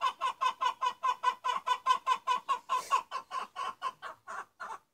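A chicken clucking in a fast, even run of short clucks, about six a second, fading near the end.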